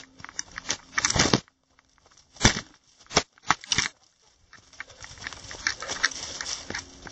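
Running footsteps crunching through dry leaf litter and twigs on a forest trail, an irregular run of crackling steps. It thins to a few single steps for about three seconds in the middle, then picks up again.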